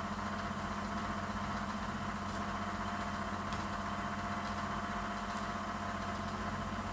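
Steady mechanical hum of a running machine, unchanging throughout, with a few faint light clicks.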